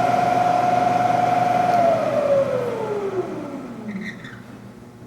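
Bridgeport Series 1 milling machine's 2 hp spindle drive running with a steady whine. About two seconds in, the pitch falls and the sound fades as the spindle winds down.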